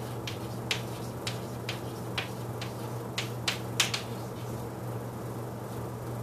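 Chalk tapping and scratching on a chalkboard as a word is written: about a dozen sharp, quick taps in the first four seconds, then they stop. A steady low hum runs underneath.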